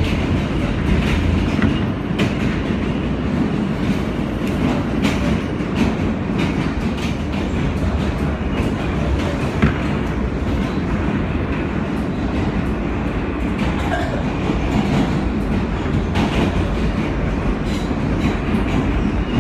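An R160B New York City subway train running at speed, heard from inside the car: a steady rumble of wheels on rail, with frequent irregular clicks as the wheels pass over rail joints.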